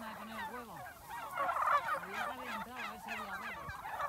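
A flock of white domestic turkeys calling, with many overlapping, rapidly warbling calls, thickest about a second and a half in.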